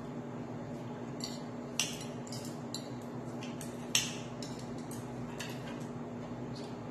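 Kitchen scissors and metal tongs clinking against a shallow metal pan of braised short ribs as the meat is cut up. There is a scattered series of sharp clinks, the loudest about four seconds in, over a steady low hum.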